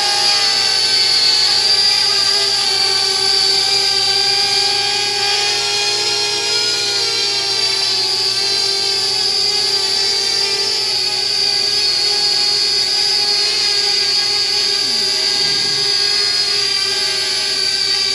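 Parrot Bebop 2 quadcopter's electric motors and propellers whining steadily in flight, the pitch wavering slightly as the motors adjust.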